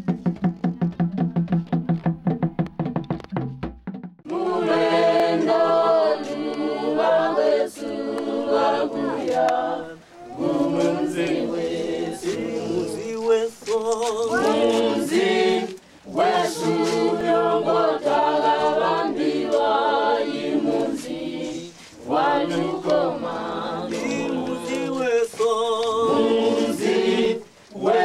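A fast, even clicking beat over a low sustained tone for about four seconds, then a choir singing unaccompanied in phrases with short breaks between them.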